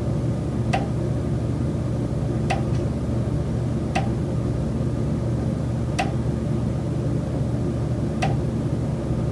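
Recurring knocking from the building's common elements inside a high-rise condo unit: five sharp knocks, each with a brief ring, at uneven gaps of about one and a half to two seconds, over a steady low hum.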